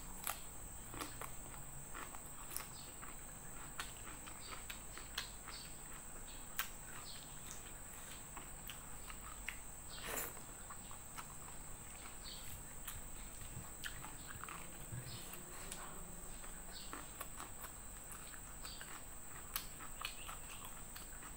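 Close-miked eating by hand: chewing and lip smacking in many short, soft clicks, over a steady high-pitched drone of insects.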